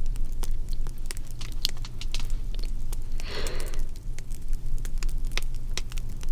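Crackling fire: frequent sharp pops and snaps over a low steady rumble. A brief breathy whisper comes about halfway through.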